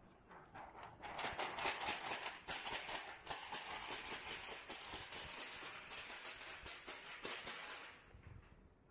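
A printed PET transfer film shaken and flicked over a metal tray, crackling and rattling rapidly as excess hot-melt adhesive powder is knocked off. The shaking starts about a second in and stops near the end.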